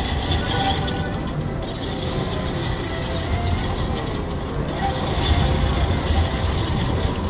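Busy street ambience with a tram approaching and running past: a steady low rumble that grows stronger in the second half, over general street noise.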